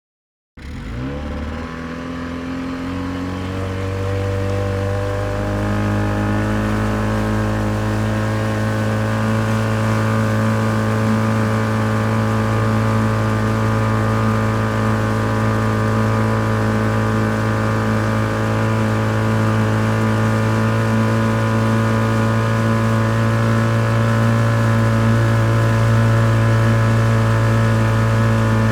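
Small motor of an aluminium fishing boat running, its pitch rising over the first few seconds as it speeds up, then holding a steady drone that slowly grows louder as the boat crosses closer.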